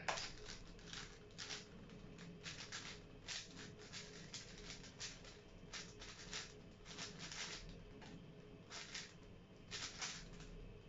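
A plastic 5x5 speed cube being turned fast by hand: quick, rattling clicks of layer turns in irregular bursts, a few each second. A sharp tap right at the start is the laptop's space bar starting the solve timer.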